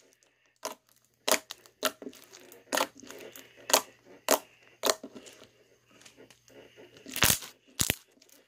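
Homemade blue slime being squished and pulled apart by hand, giving a string of sharp pops and crackles, roughly one or two a second, with the loudest crackles near the end.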